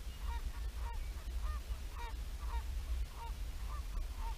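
A goose honking over and over, about two short calls a second, with wind rumbling on the microphone.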